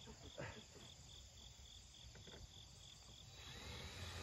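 A cricket chirping in a steady, even rhythm of about three to four high pulses a second, with a few faint knocks underneath.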